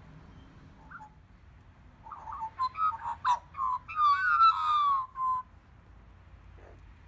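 Australian magpies calling: a run of short pitched, gliding notes starting about two seconds in, ending in a longer falling note, with a sharp click among them.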